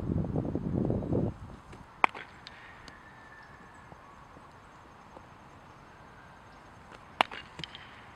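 Wind rumbling on the microphone for about the first second, then two sharp cracks about five seconds apart: a baseball struck by a bat for outfield fielding practice.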